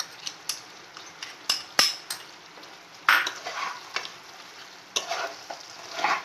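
Metal spatula stirring chicken curry in a nonstick pan over a steady sizzle, working in freshly added poppy-seed and cashew paste. Short clicks of the spatula on the pan, with louder scrapes about three seconds in and again near the end.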